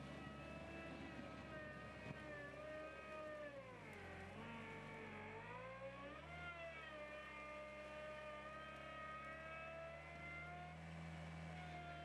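Skid steer loader engine running, its pitch dropping about four seconds in as it takes load, then climbing back and holding steady.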